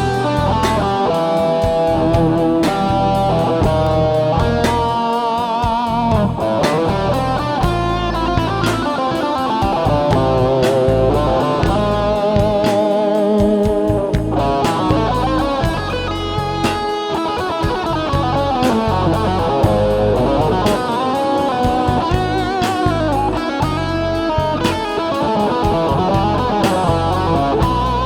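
Electric guitar music: lead lines with bent and wavering notes over a steady low bass part.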